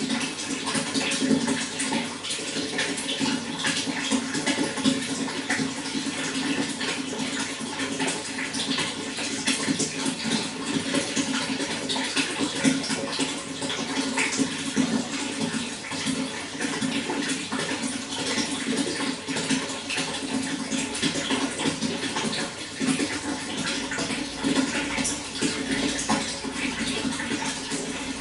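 Running water flowing steadily, an even, continuous rush with no pauses.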